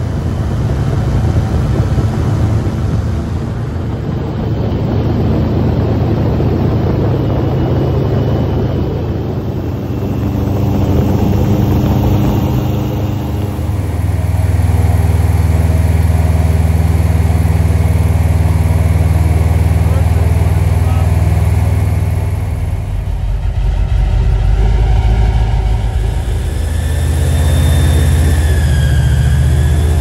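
Airboat engine and propeller running hard, a loud steady drone whose pitch shifts a few times as the throttle changes.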